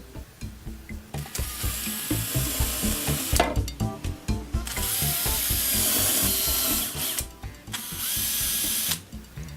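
Power drill pilot-drilling the fixing holes for a door closer into a door, in three runs of about one to two seconds each with short pauses between.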